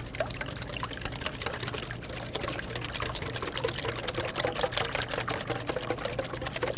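Wire whisk beating a liquid custard mix of egg yolks, sugar, vanilla and half and half in a stainless steel bowl: a rapid, even patter of the whisk clicking against the metal and sloshing the liquid.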